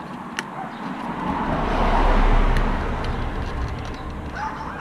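A vehicle driving past, its noise and low rumble growing to a peak about two seconds in and then fading away. A couple of short clicks sound over it.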